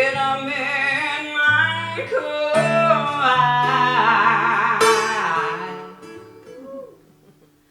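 A woman singing a drawn-out, sliding melodic line over acoustic guitar, in a live performance of a ballad. The voice and guitar fade about six seconds in, leaving it nearly quiet near the end.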